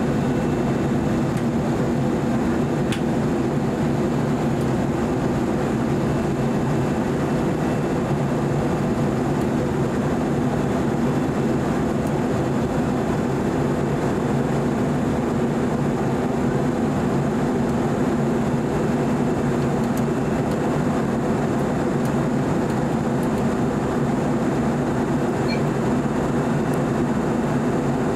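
Airliner cabin noise inside an Airbus A321-200 in flight: a steady rush of engine and airflow noise with a constant low hum.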